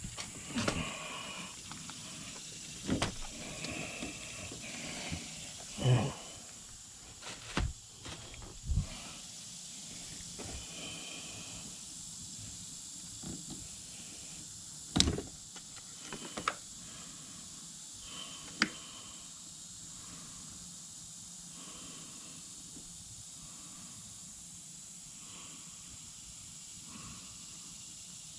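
Scattered knocks and clicks with brief rustling over a steady hiss; the loudest knocks come about six and fifteen seconds in, and the last third holds only the hiss.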